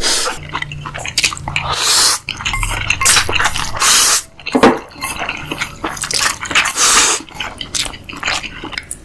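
Close-miked mukbang eating: loud wet chewing, smacking and slurping, a dense run of irregular mouth clicks and bites.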